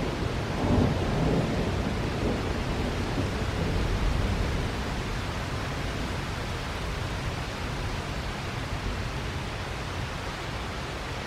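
Thunder rumbling, swelling about a second in and again around four seconds, then dying away under the steady hiss of heavy rain.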